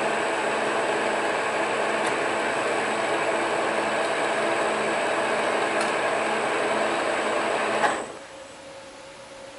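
Monarch metal lathe running steadily, a machine hum made up of several steady tones. About eight seconds in there is a sharp click and the running sound drops away quickly, leaving only a faint steady hum.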